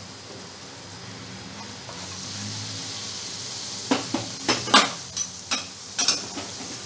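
Milk poured into ghee-roasted amaranth flour in a hot nonstick frying pan sizzles, the hiss building about two seconds in. From about four seconds a slotted spatula knocks and scrapes against the pan in sharp strokes as the mixture is stirred.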